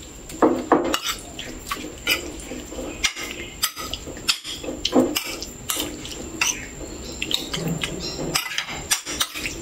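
Metal spoon scraping and clinking against a ceramic plate in quick irregular strokes, with the wet squish of pork slices being tossed in starch and fish sauce to marinate.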